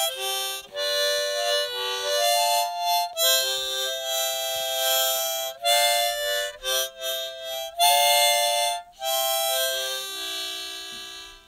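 Harmonica playing a tune in phrases, often several notes sounding together as chords, with brief breaks between phrases; it fades out near the end.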